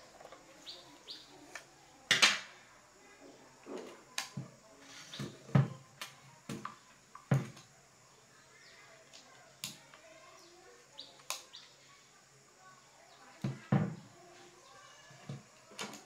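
Scattered clinks and knocks of tools and metal drill parts being handled, at uneven intervals, the loudest about two seconds in. Faint bird chirps sound in between.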